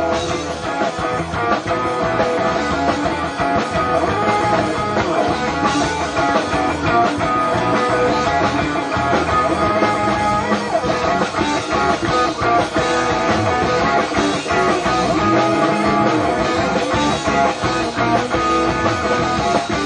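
Live rock band playing an instrumental, guitar-led passage with no singing, closing out the song.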